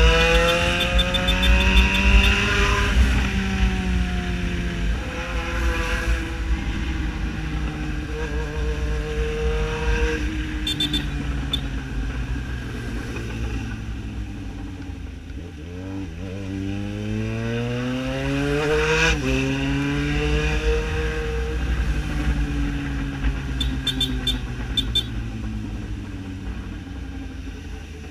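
Yamaha XJ6 motorcycle's 600 cc inline-four engine running loud, its pitch climbing and falling as the rider accelerates and backs off. About fifteen seconds in the revs drop low, then climb quickly before easing off again.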